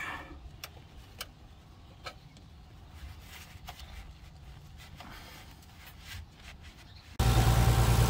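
Light tool clicks and metallic knocks from a wrench working on a power steering banjo bolt under the car. About seven seconds in, the Nissan 300ZX's V6 engine comes in, idling steadily and much louder.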